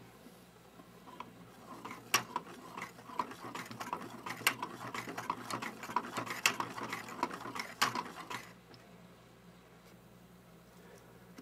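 Hand-cranked 3D-printed plastic Scotch yoke dual-piston model: the crank pin sliding through the slider drives the connecting rods and pistons back and forth in their cylinders, giving a rapid run of light plastic clicks and rattles. The clicking stops about two-thirds of the way through.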